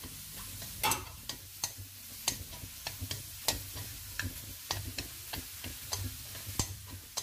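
Cooking chopsticks tapping and scraping on a metal pan as chopped bell pepper and scallions are stir-fried, with oil sizzling underneath. The sharp clicks come irregularly, about one or two a second, over a low steady hum.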